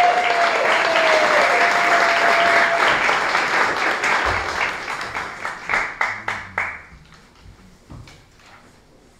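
Audience applauding a performer onto the stage, with one voice holding a long cheering call over it for the first three seconds. The clapping thins to a few scattered claps and dies away about seven seconds in.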